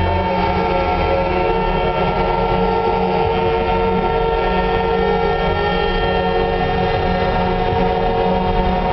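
Truck air horns sounding one long, unbroken chord of several tones, like a train horn, over the low rumble of a diesel engine as the truck rolls slowly past.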